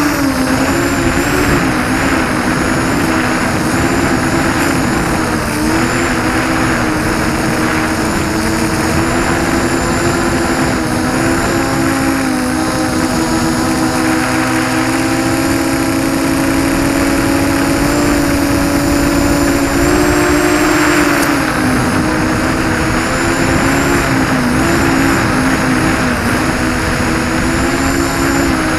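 ZMR-250 racing quadcopter's brushless motors and propellers buzzing steadily at cruise, as heard from its onboard camera, with a rush of air. The pitch wavers a little and dips briefly a few times as the throttle is eased.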